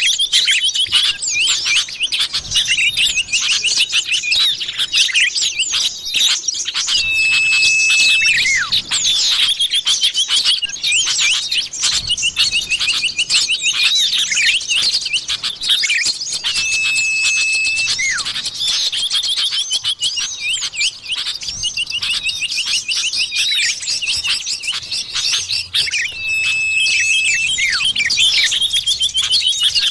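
Common iora (cipoh) calls: a dense run of chirps and quick trills, broken about every nine seconds by a long, level whistle, as used for luring the bird.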